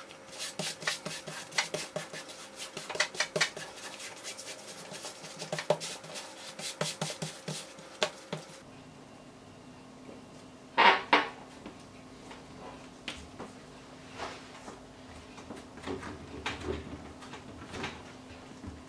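A leather sheet and card boards being handled and laid on a cutting mat: a dense run of rustles and light taps, then sparser taps with two louder knocks close together about halfway through.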